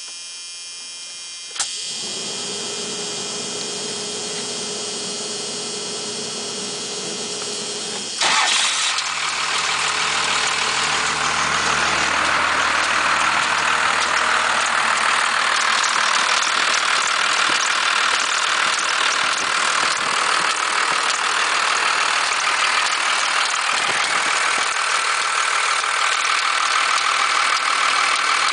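After about eight seconds of a steady electrical whine, a 1991.5 Dodge Cummins 5.9-litre turbo-diesel inline-six starts and settles into a steady idle. At idle it makes the noises the owner is concerned about, which he says go away as the rpm rises, while the belt tensioner is seen bucking.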